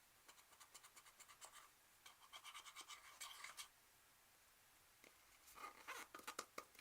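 Slime being handled, making faint quick runs of small clicks and pops in three bursts, the last near the end.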